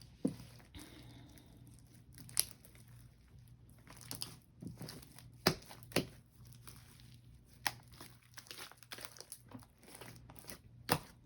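Sticky homemade clear slime being stretched and worked by hand: scattered sharp clicks and pops with faint crackling between them.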